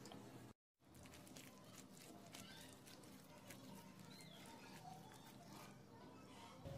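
Faint wet squelching and irregular soft clicks of a hand mixing thick gram-flour pakora batter in a glass bowl, after a moment of dead silence about half a second in.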